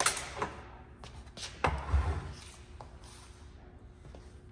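A few sharp clicks and knocks of hand tools being handled on a steel workbench, with a low thump about two seconds in, over quiet shop room tone.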